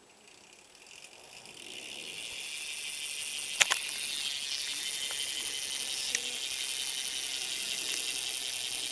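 BMX rear hub clicking in a fast, steady ratchet buzz as the back wheel is spun freely: the pawls running over the driver. It builds up over the first two seconds, with a sharp click about three and a half seconds in and another near six seconds.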